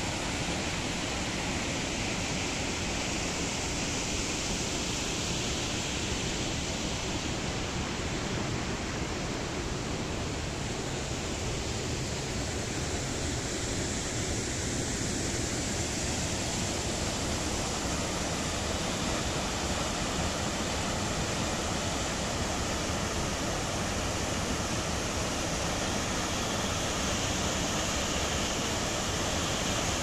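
Waterfall and shallow river rapids: a steady, even rush of falling and running water.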